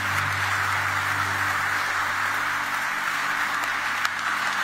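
Large audience applauding steadily, many people clapping at once.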